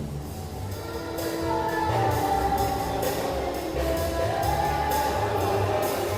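Music with a steady beat: percussion about twice a second under a bass line and a melody.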